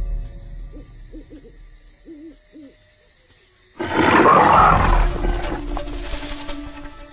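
Owl sound effect hooting a few short times. About four seconds in, a sudden loud big-cat roar breaks out and fades over a second or so.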